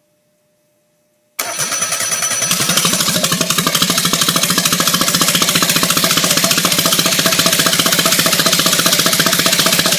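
Suzuki 993 cc three-cylinder engine cranking briefly, then catching about a second and a half in and running on steadily and loud, with an even, rapid firing pulse. The engine fires now that its HEI-module ignition has the coil's primary wires swapped.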